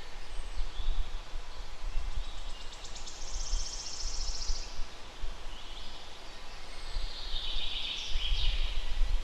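Wind buffeting the microphone in gusts, with songbirds singing: a rapid high trill about three seconds in and another burst of song near the end.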